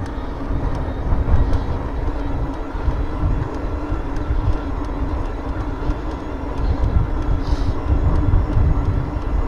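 Wind noise buffeting the handlebar camera's microphone on a moving e-bike, with a steady hum from the bike's Bosch drive motor running in Turbo assist and tyres on tarmac.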